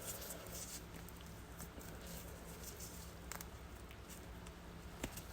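Faint rustling and light patter of hands working an otter's skin off the tail during skinning, with a couple of sharp little clicks, over a steady low hum.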